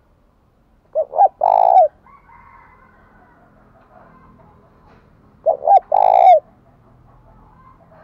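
Spotted dove cooing twice, about four and a half seconds apart. Each call is two short coos followed by a longer coo that falls away at its end.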